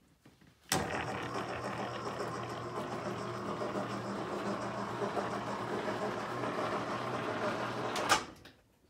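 Electric motor of a motorized studio backdrop roller running steadily for about seven seconds as it lowers a backdrop, with a low hum. It starts with a click and stops with a sharper, louder click.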